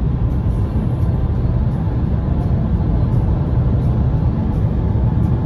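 Steady road and engine noise of a moving car: a continuous low rumble with an even hiss above it.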